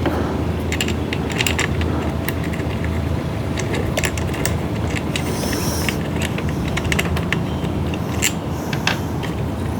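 Fuel tank and housing parts of a Homelite leaf blower clicking and knocking irregularly as they are worked by hand into line for mounting, over a steady low hum.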